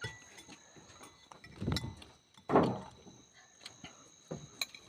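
Close-up eating sounds: mouth noises from chewing, with a louder one about two and a half seconds in and a few faint clicks.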